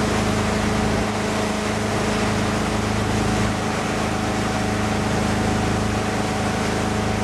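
Motorboat engine running steadily at towing speed, a constant hum under a broad rushing noise of water and wind.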